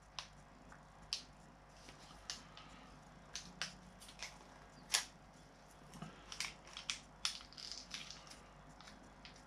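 A small foil sachet being handled and worked open in the fingers: faint, scattered crinkles and clicks at irregular intervals, the sharpest about five seconds in.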